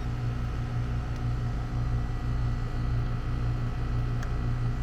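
Outdoor Trane air-conditioning condensing unit running under normal load: a steady low hum from the compressor and fan, drawing about 6 amps.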